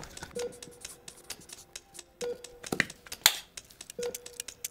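Countdown-timer beeps: a short tone about every two seconds, three times in all, over many irregular sharp clicks.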